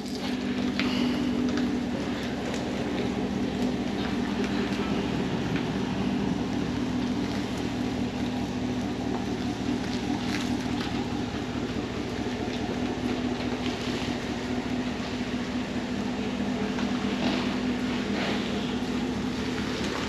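Farm machinery engine running steadily at low speed with an even drone as a welded piece of old equipment is backed slowly out of the shop.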